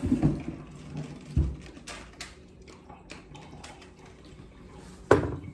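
Kitchen handling noises: a couple of soft thumps near the start, scattered light clicks and taps, and one sharp knock about five seconds in, as celery and utensils are handled on the counter.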